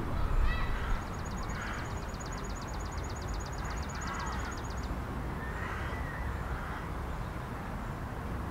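Open-air park ambience with a steady low wind rumble on the microphone. A bird gives a fast, even trill of about eight notes a second, starting about a second in and stopping near the middle, with a few faint distant calls around it.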